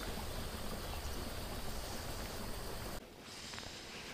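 Steady rush of flowing river water, which drops suddenly to a fainter hiss about three seconds in.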